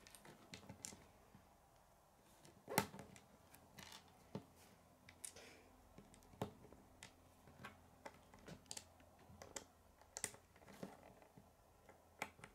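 Small grey Lego plates and bricks clicking and tapping as they are handled, pressed together and set down on a wooden table: faint, irregular clicks, the loudest about three seconds in.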